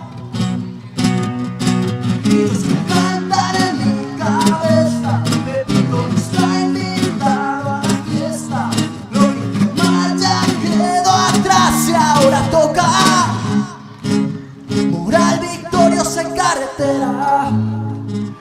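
Song with strummed acoustic guitar under a wavering sung melody without clear words.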